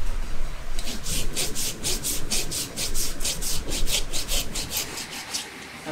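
Farrier's flat steel rasp filing a shod horse's hoof in fast, even strokes, about five a second. The strokes start about a second in and stop shortly before the end.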